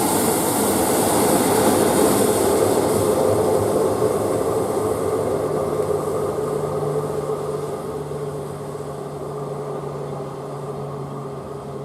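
Diesel train passing on the line, loudest about two seconds in and then slowly fading as it draws away, with a steady engine hum under the rumble of the wheels.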